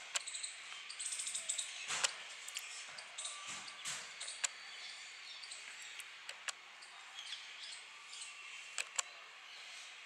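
Black-rumped flameback woodpeckers pecking with their beaks at a cement ledge: irregular sharp taps, with a quick run of taps about a second in.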